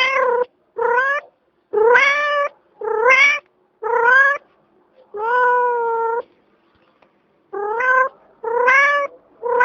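Domestic cat meowing over and over: about eight rising meows roughly a second apart, one longer, steadier meow in the middle, then a short pause before the meowing picks up again.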